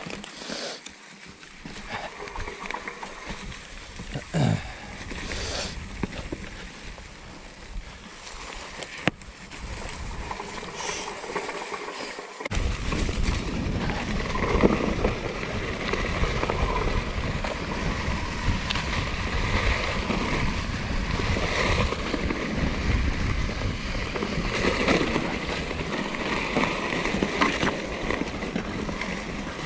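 Norco Torrent plus-tyre hardtail mountain bike being ridden over a dirt trail: tyre noise on the ground with the rattle and clicks of the bike. About twelve seconds in the low rumble suddenly gets much louder and stays that way.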